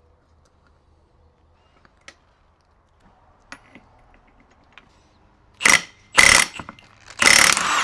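A few faint metal clicks and taps of engine parts being handled, then, from about two-thirds of the way in, loud short rattling bursts of a mechanical tool at work on the engine, the last and longest running close to a second.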